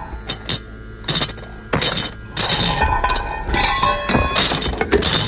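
Sound-effect test for a Martian cylinder: a series of sharp clinks and knocks, getting busier about halfway through, with a few brief ringing tones near the middle.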